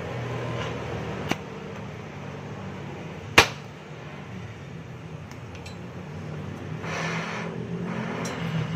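Exhaust welding under a car: a steady low hum runs throughout, with a short click at about a second and a loud sharp metallic tap at about three and a half seconds. A brief hiss follows near the end.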